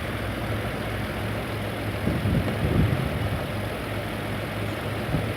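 Car engine idling steadily, kept running by the alternator with both battery leads disconnected.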